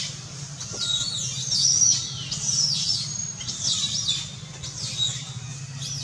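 Rapid high-pitched chirping calls, several a second, each sliding up and down in pitch, over a steady low hum.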